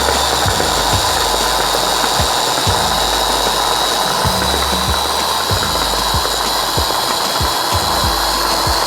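Electric kitchen blender running steadily at full speed, a loud motor whine over a grinding rush, blending the seasoned sauce ingredients.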